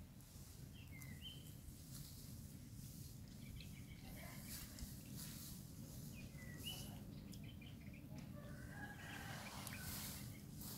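Faint, short, high-pitched animal calls: a brief two-note chirp about a second in, the same chirp again past the middle, and a longer call near the end, over a low steady outdoor rumble.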